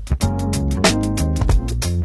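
Background music with a steady beat, bass and plucked-guitar chords.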